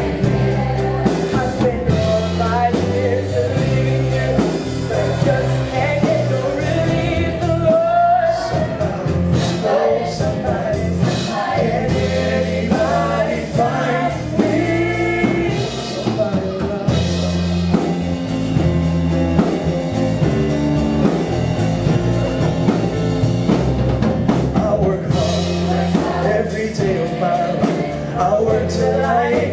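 Rock-style song with drum kit, bass and guitar, and singing over it.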